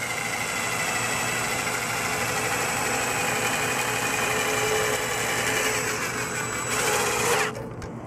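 A handheld power tool turns a condenser fan puller through a 3/4-inch socket, pulling the fan blade off the motor shaft. It runs steadily, rises slightly in pitch near the end, then stops abruptly.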